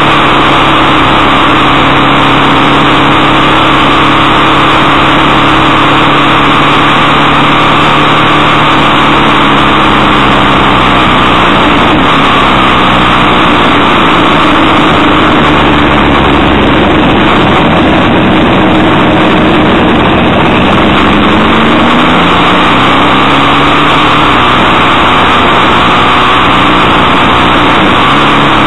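Motorcycle engine running at road speed under loud wind rush. The engine note falls and rises a few times in the middle stretch as the throttle and gears change through the bends.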